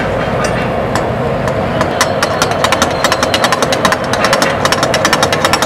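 A metal spatula clanks rapidly against a steel wok of chicken karahi, about seven strikes a second from about two seconds in. Under it runs steady frying sizzle with the burner flame.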